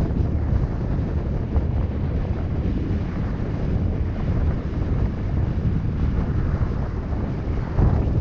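Wind buffeting the microphone of a vehicle-mounted action camera while driving, over a steady low road rumble. An oncoming car passes close by near the end, briefly louder.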